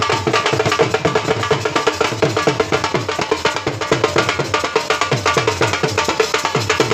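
Dhol drum played in a fast, steady dance beat for the jhumar, its deep strokes dropping in pitch after each hit, with sharper strokes between.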